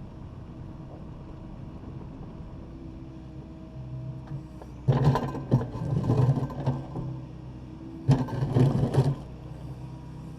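Takeuchi TB260 excavator's diesel engine running steadily. About halfway through, and again near the end, it is broken by two spells of loud crunching and scraping as the digger works broken concrete floor.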